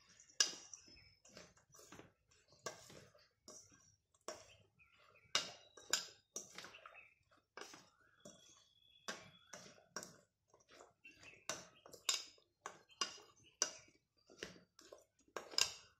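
A spoon stirring a chopped raw vegetable salad in a stainless steel bowl: irregular soft clicks, scrapes and moist squelches of the spoon against the bowl and vegetables, a few strokes ringing briefly.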